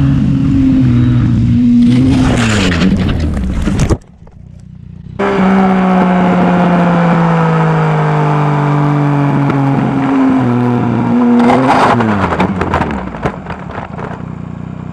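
Yamaha MT-09's three-cylinder engine running with its pitch falling as the bike slows, broken by two bursts of scraping and clattering as the bike goes down and slides into the verge. The sound cuts out for about a second about four seconds in.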